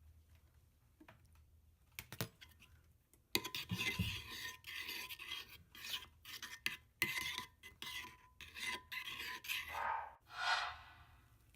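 Slime being mixed: after a quiet start, a run of quick, irregular rubbing and scraping strokes begins about three seconds in.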